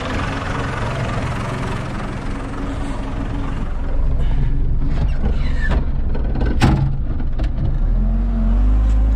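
John Deere 3200 telehandler's diesel engine idling, heard from the cab, with several knocks and clunks as the driver settles in. Near the end the engine speeds up and holds at a steady higher pitch.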